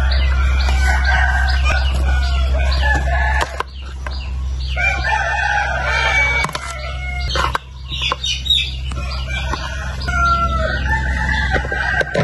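Roosters crowing repeatedly, about four long drawn-out calls overlapping one another, with a few sharp clicks of a spoon scraping food from a plastic bowl.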